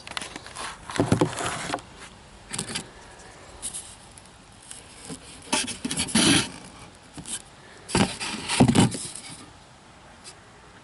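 A folding knife and fingers scraping and knocking against a disposable plate while a small fig is cut open: irregular short scrapes and handling sounds, a few seconds apart, dying down near the end.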